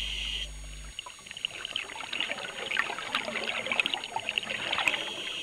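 Underwater bubbling and crackling from scuba divers' regulator exhaust bubbles, irregular with scattered small ticks, heard after a brief steady hum in the first second.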